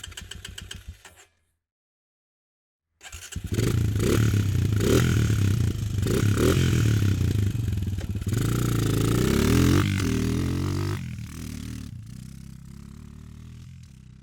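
Quad bike engine: the tail of a rapid starter cranking ends about a second in, then after a short pause the engine fires and runs loudly, revving up and down. After about eleven seconds it drops and fades steadily away.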